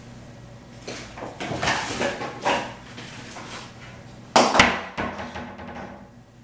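Indoor knocks and handling noises, with one sharp bang or thud, the loudest sound, about four and a half seconds in.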